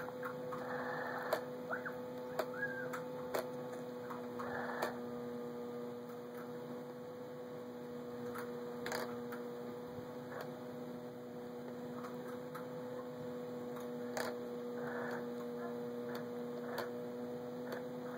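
Steady electrical hum made of two even tones, with scattered sharp clicks and short rustling bursts, most of them in the first few seconds.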